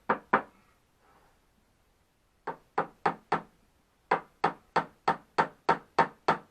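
Hammer tapping panel pins into the wood of a box: two sharp taps, a pause, four more, then an even run of about three taps a second.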